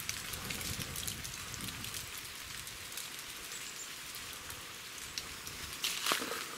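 Footsteps crunching on a dry, leaf-strewn forest path over a steady hiss, with scattered crackles that grow louder about six seconds in.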